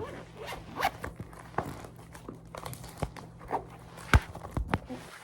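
A zipped card binder being unzipped and handled, with quick scraping zipper strokes and light clicks, and one sharp knock about four seconds in.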